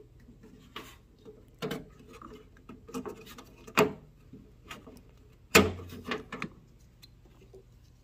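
Small flat-blade screwdriver prying at the plastic locking clip of the throttle position sensor's wiring connector: a string of irregular plastic clicks and knocks, the loudest about five and a half seconds in.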